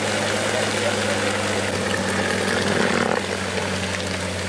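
A vehicle engine idling steadily. From about two seconds in, a fuller, louder sound rises over it for a little over a second, then drops away sharply.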